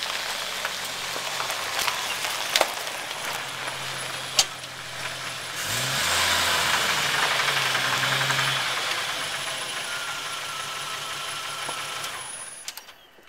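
A Jeep's engine running as the vehicle drives up and pulls to a stop. Its pitch rises about six seconds in and it runs louder for a few seconds before settling, with two sharp knocks about two seconds apart earlier; the sound drops away near the end.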